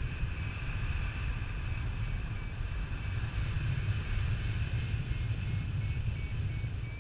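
Wind rushing over the microphone of a camera carried in paraglider flight: a steady, buffeting low rumble with a hiss above it.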